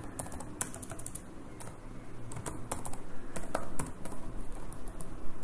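Typing on a computer keyboard: a run of quick key clicks at uneven spacing.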